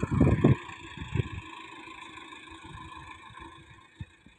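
Tractor engine running steadily, fading toward the end, with a few low rumbling bursts in the first half-second.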